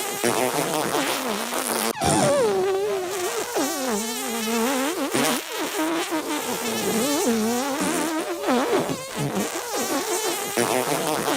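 Comic fart noises: a buzzy pitch that wobbles and slides up and down without pause, broken by a sharp cut about two seconds in.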